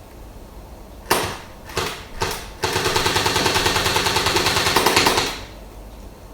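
Electric AK-47 BB gun firing: a few short bursts, then a long full-auto burst of about two and a half seconds with an even, rapid rattle of shots that stops abruptly.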